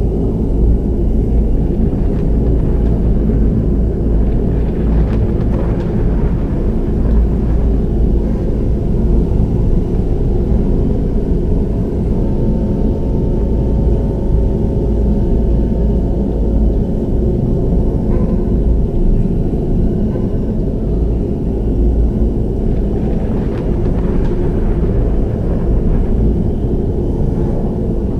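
Deep, steady low drone of Tibetan Bon ritual music, with a faint higher held tone for a few seconds midway.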